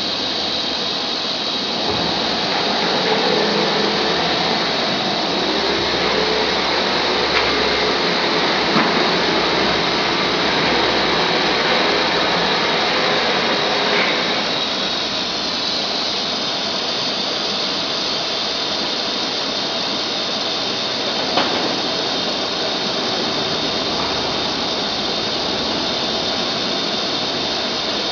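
ATC CNC router cutting MDF: a steady, loud whirring of the spindle and bit working through the board. It is somewhat louder and rougher for a stretch early on, then evens out, with one sharp tick about three quarters of the way through.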